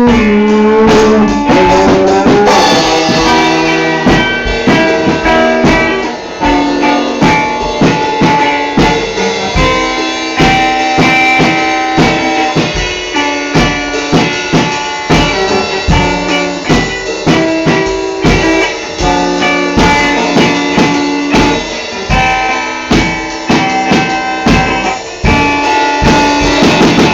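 A band's instrumental passage with no singing: a drum kit keeps a steady beat of regular hits under sustained guitar and keyboard chords.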